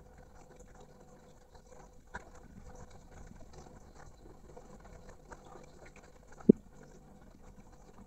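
Caged poksay mandarin moving about its cage: light scattered taps and pattering, with one sharp knock about six and a half seconds in, over a faint steady hum.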